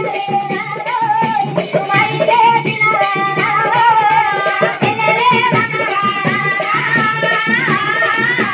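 Telugu devotional folk song (paata): a high voice singing a wavering melody over a steady, jingling percussion beat.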